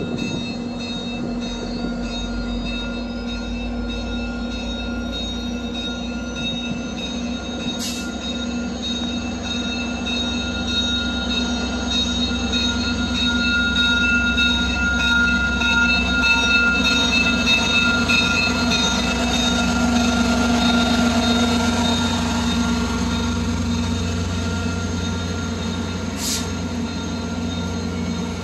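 Via Rail passenger train rolling past: a low rumble with steady whining tones above it, growing louder toward the middle and then easing off. Two short sharp clicks stand out, one early and one near the end.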